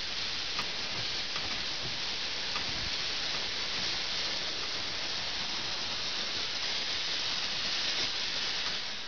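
Steam blowing off in a steady hiss from a jet low on the side of a narrow-gauge steam locomotive built in Germany in 1936, standing still.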